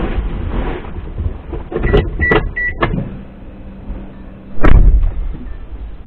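A person getting into a car: rustling and knocks, then three short high beeps about two seconds in. A little before the end comes one heavy thump, the loudest sound, as the driver's door is pulled shut.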